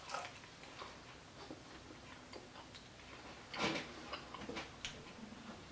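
Faint chewing of a breaded chicken strip: small irregular crunches and mouth clicks, with one louder burst about three and a half seconds in.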